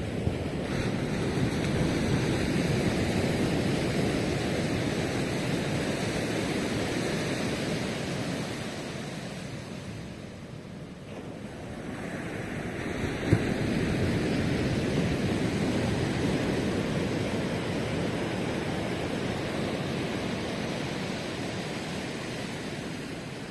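Ocean waves breaking and washing up the shore in a steady surge. The surf ebbs to a lull about ten seconds in, then builds again as the next wave comes in.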